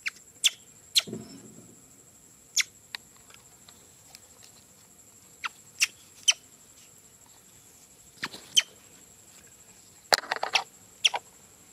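Baby macaque giving short, shrill squeals, each falling in pitch, spaced irregularly with a quick run of them near the end.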